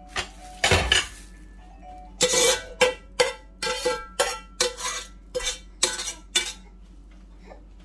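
A utensil knocking and scraping against a small metal pan held tipped over a stockpot, clearing out its contents: a quick clatter about half a second in, then about ten sharp taps, roughly two a second.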